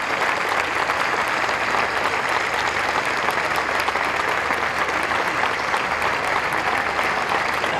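Large crowd applauding steadily, a dense crackle of many hands clapping at once.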